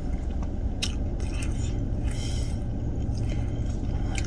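Clicks and a short scrape of a small plastic syrup cup being handled, over a steady low rumble inside a car cabin.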